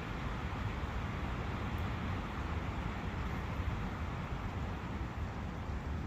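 Forest ambience of wind and a running brook: a steady, even rushing noise with a low rumble that does not change.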